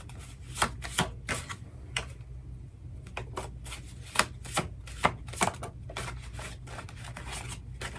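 Tarot cards being shuffled by hand: a string of irregular soft slaps and clicks as the cards knock together, over a low steady hum.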